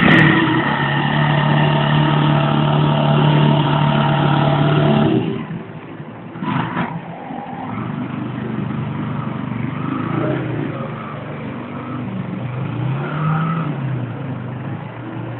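Yamaha TT250R single-cylinder four-stroke engine revved and held at a steady, loud pitch for about five seconds, then dropping back sharply. Quieter engine sound follows, with a short rise and fall in pitch near the end as the bike pulls away among street traffic.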